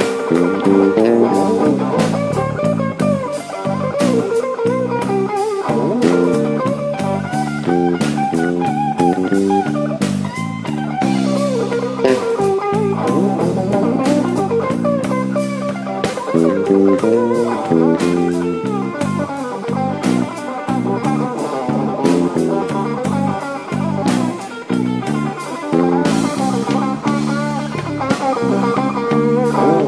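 Live slow blues played instrumentally on electric guitar, bass guitar and drum kit, with no vocals.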